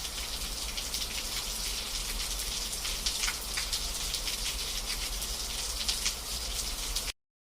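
Steady rain with many small drop ticks, cutting off abruptly about seven seconds in.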